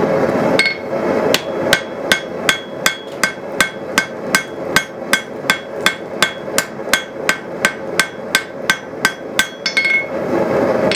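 Rounding hammer striking a white-hot layered Damascus billet on a steel anvil: quick, firm, steady blows at about three a second, each with a short metallic ring, setting the forge weld and forcing the flux out from the center. The steady roar of the propane gas forge is heard before the hammering starts and again near the end.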